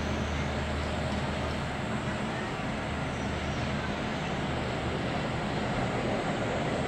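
Steady hum of distant city traffic: an even, low rumble with no distinct events.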